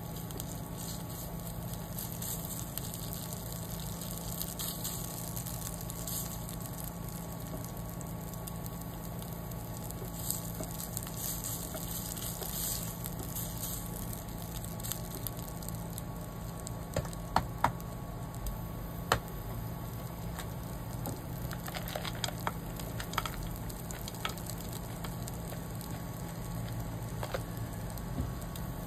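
Red curry paste frying in oil in a nonstick pan, sizzling and crackling steadily as a silicone spatula stirs and spreads it, over a steady low hum. A few sharp clicks stand out in the second half.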